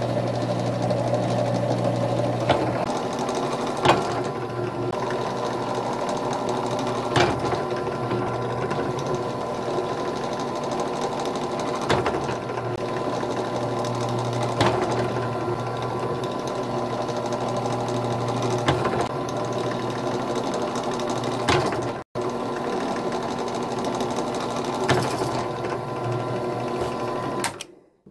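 Benchtop drill press motor running steadily as its bit drills holes through a PVC plastic end cap, with a sharp click every few seconds. The running stops just before the end.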